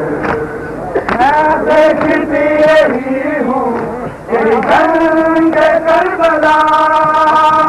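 A man's voice chanting a Muharram mourning lament (nauha) in long held notes that glide between pitches, with brief breaks between phrases. Short sharp strokes sound at intervals over it.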